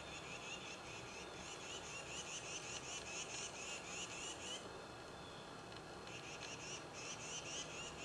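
A small animal chirping: a rapid series of short, rising chirps, about five a second, stopping about four and a half seconds in and starting again about a second and a half later.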